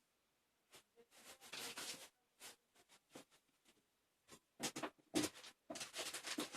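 Cat pawing and clawing at a roll of toilet paper: irregular bursts of paper rustling and scratching, sparse at first and busier and louder in the second half.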